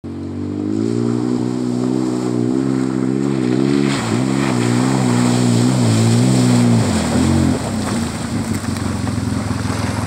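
Polaris RZR 800 side-by-side's twin-cylinder engine running under throttle, its pitch rising and dipping, with muddy water splashing as it ploughs through a puddle. About seven seconds in the engine note drops and rougher splashing and driving noise takes over.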